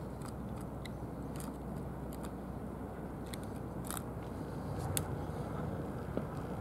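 Cats eating from plastic bowls, with scattered short clicks of chewing at irregular intervals over a steady low background rumble.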